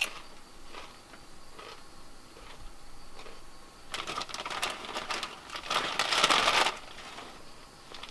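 Rustling, crinkling handling noise with many small clicks, building up about halfway through and loudest a little before the end.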